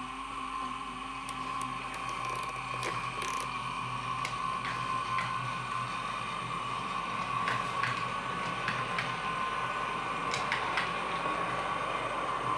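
00 gauge model train running: a steady motor whine with a low hum beneath, and the wheels clicking now and then over the track.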